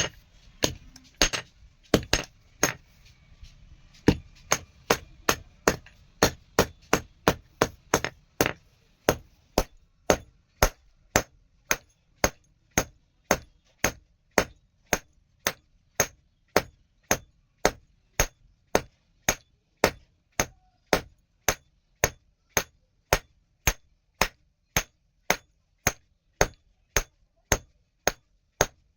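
Blacksmith's hammer striking a small steel rod being forged into a knife: a few scattered blows, then a steady, even rhythm of about two ringing blows a second from about four seconds in.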